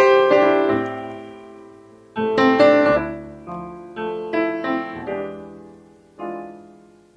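Piano music: a loud chord at the start is left to ring and fade, then a short run of notes and chords, with a last chord near the end.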